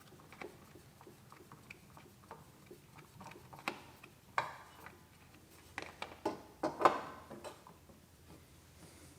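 Scattered light clicks and taps, with a few sharper knocks about four seconds in and again between six and seven and a half seconds: oil filter pliers and a filter funnel handled against a mower's oil filter as it is worked loose.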